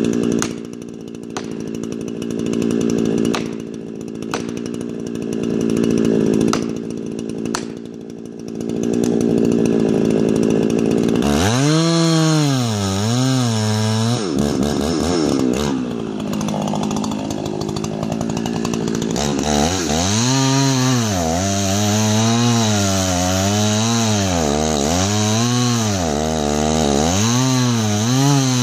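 Chainsaw cutting a large beetle-killed ponderosa pine. For the first ten seconds or so the engine runs steadily at high speed in the cut. After that its pitch rises and falls about once a second as the load on the chain changes.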